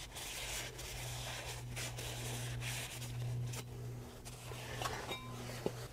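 Faint rubbing of a cloth wiped over a new brake disc, in soft strokes that come and go, over a steady low hum.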